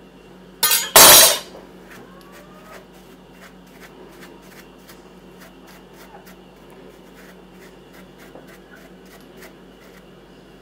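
A kitchen knife is put down on the stone worktop, two quick metal knocks about a second in, the second the loudest with a short ring. After that come faint light scratches of a pastry brush working over the mushroom.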